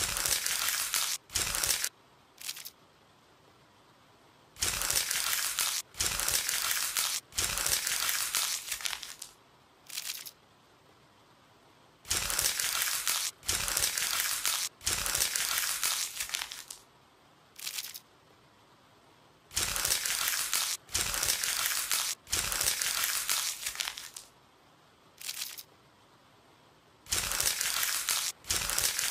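Crunching, crinkling sound effects in bursts of about a second. They come in clusters, each closed by one short crunch, with brief pauses between.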